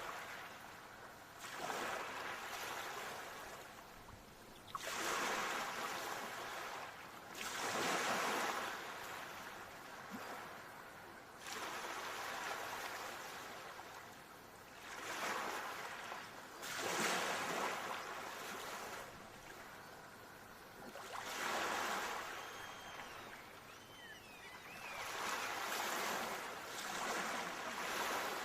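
Ocean surf: waves breaking and washing in, each rush of water swelling and fading every few seconds. A few faint high chirps come in about three-quarters of the way through.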